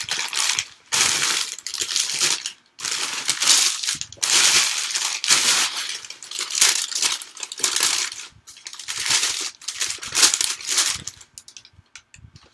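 Newspaper sheets rustling and crinkling as they are handled and unfolded by hand, in a run of bursts that die down near the end.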